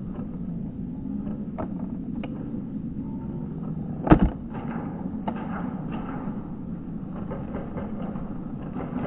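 Airsoft guns firing in scattered single shots, heard as short sharp snaps, with one much louder double crack about four seconds in, over a steady low rumble.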